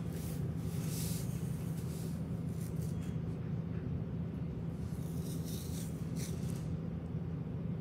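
A small comb raked through a Bernese mountain dog's thick fur: several scratchy strokes, over a steady low hum.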